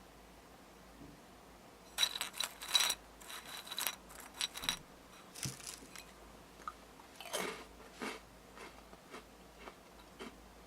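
Crunchy snack being bitten and chewed. A quick run of crunches starts about two seconds in, then thins out to occasional crunches.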